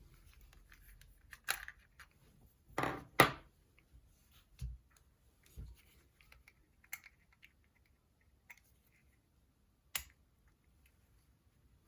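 Nokia 6260 handled and its keys pressed: irregular plastic clicks and brief rubbing noises, the loudest pair about three seconds in and a sharp click near the end. No ringtone sounds.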